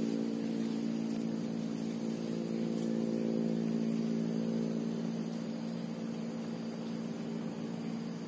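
An engine-like motor drone running steadily at one low pitch, easing a little softer about halfway through.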